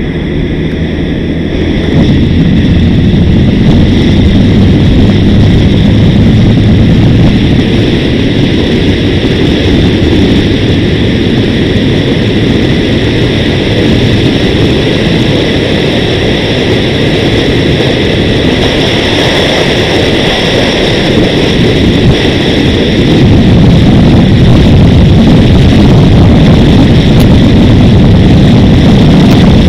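Wind rushing over an action camera's microphone on a moving vehicle, with engine and road noise underneath. The roar gets louder about two seconds in and again near the end.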